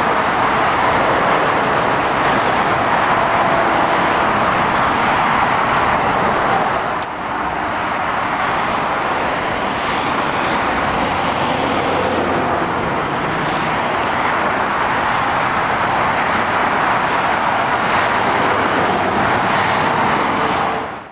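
Steady dual-carriageway traffic noise: lorries and cars passing at speed, with tyre roar and engine noise. A short click comes about seven seconds in, where the level briefly dips, and the sound fades out at the very end.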